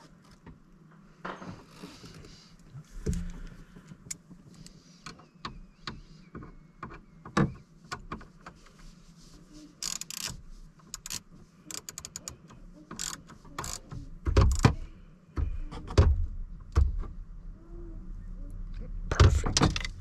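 Irregular clicks, rattles and knocks of plastic and metal parts as a new shift lever is worked into a GM truck's steering column, with a few louder knocks in the second half.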